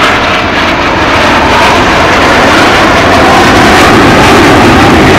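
Aermacchi MB-339 jet trainers flying in formation: a loud, steady jet rush that grows slightly louder.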